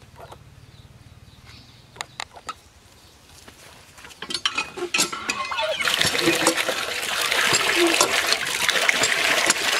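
Hand-lever water pump being worked, with a few clanks and knocks of the handle, then water gushing from the spout into a metal basin, splashing steadily and louder from about six seconds in as the basin fills.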